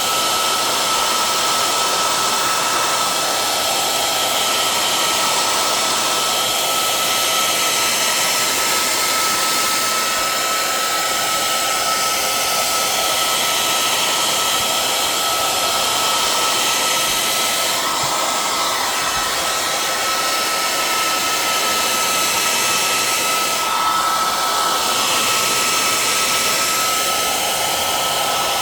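Handheld hair dryer running continuously on a steady setting, an even rush of air with a steady high whine through it, heating a plastic planner cover to soften and stretch it.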